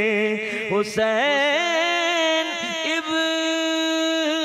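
A man singing an Urdu devotional verse in praise of Hussain, drawing the words out on long, wavering held notes. There is a short break for breath just before a second in, then the next phrase begins with the name "Hussain".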